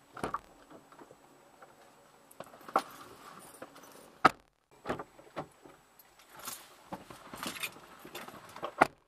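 People moving about in a parked car's cabin: a handful of sharp clicks and knocks, the loudest about four seconds in and another near the end, with rustling between them.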